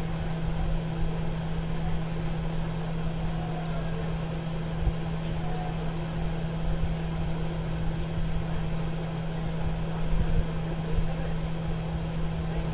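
Steady low electrical hum from running workbench equipment, with a rough rumble beneath it and a few faint clicks.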